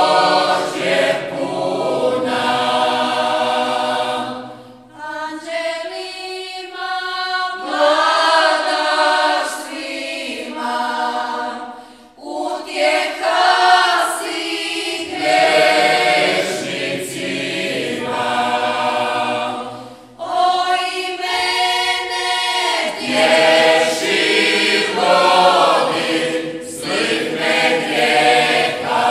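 Mixed choir singing a Marian hymn in the traditional folk vocal style, with no instruments heard. The singing goes in long phrases that break off about five, twelve and twenty seconds in. After the first and last breaks the upper voices begin the new phrase alone and the lower voices join a couple of seconds later.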